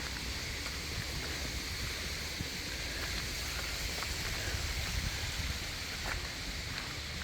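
Steady rushing of a small forest stream, with a low rumble underneath.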